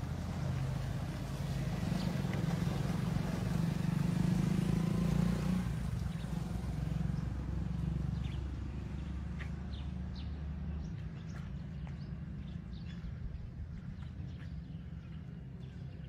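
Low outdoor rumble, loudest in the first half and easing off, with short scattered bird chirps coming in over it in the second half.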